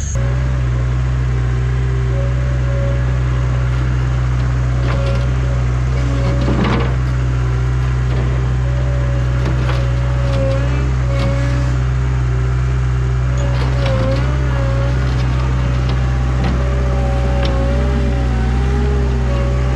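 Toyota SDK7 skid steer engine running steadily at an even speed, with a few light knocks and clatters over it.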